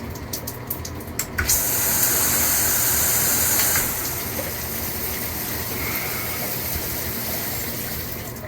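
Water spraying from a dual rain and handheld shower head: a steady hiss that turns much louder and brighter about a second and a half in and eases back a couple of seconds later. A few light clicks come at the start.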